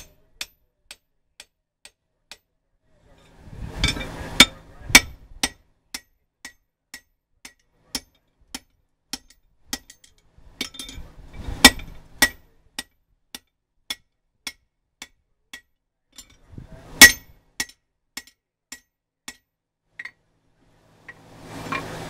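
Hammer striking a steel drift driven through the hot eye of a forged axe head on the anvil: a steady run of sharp metallic clinks about two a second, with a few heavier blows among them.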